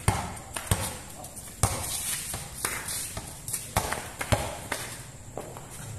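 Sounds of a pickup basketball game on a concrete court: a string of irregular sharp thuds and slaps from the ball bouncing and players' feet, thinning out toward the end.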